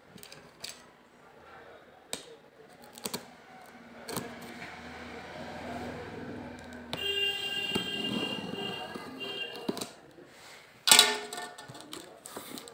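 Box cutter slitting the packing tape on a cardboard box: a few sharp clicks, then the blade scraping along the seam, turning into a squeaky, pitched drag for a few seconds, and a sharp loud crackle of cardboard about eleven seconds in.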